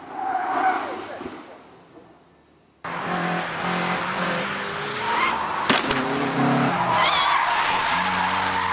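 Rally car engine going past and fading away. Then it cuts abruptly to a loud hatchback rally car driven hard round cones on tarmac, its engine revving with tyres squealing. A single sharp click comes near the end.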